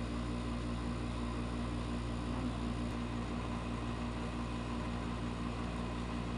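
Steady low hum with an even hiss: continuous background machine noise, unchanging throughout.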